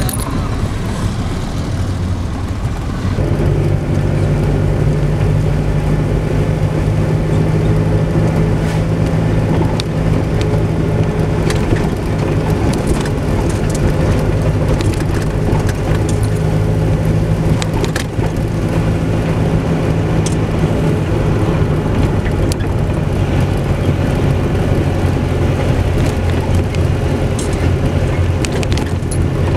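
Car engine and tyre noise heard from inside the cabin while driving on a rough mountain road: a steady low engine hum that grows louder about three seconds in, with road rumble and occasional small clicks and rattles.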